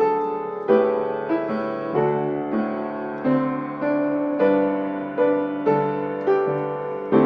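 Slow, gentle piano music: notes struck at an even pace, about three every two seconds, each one fading before the next.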